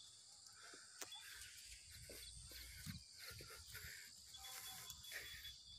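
Faint outdoor ambience: insects keep up a steady high hum, with a few soft clicks and brief low rumbles of handling noise.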